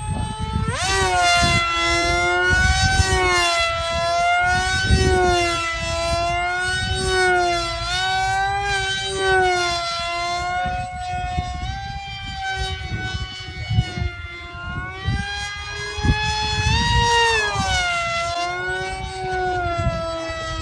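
RC flying wing's motor and propeller whining overhead, the pitch wavering up and down as it turns and passes, rising steeply about a second in and again near the end.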